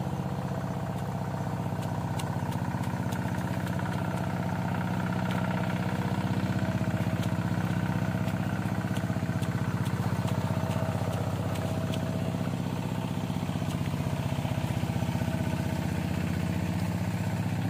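A small engine running steadily at an even speed, with a fast, regular pulse and no change in pitch.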